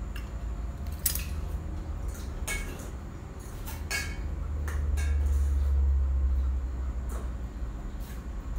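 Scattered clinks and knocks of kitchen utensils against pots and dishes as food is handled at the stove, about seven separate clinks over a low hum that swells in the middle.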